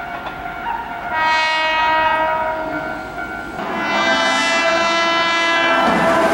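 Keihan electric train horn sounding twice. The first blast lasts about two seconds. After a short break comes a longer one, with the approaching train's running noise under it.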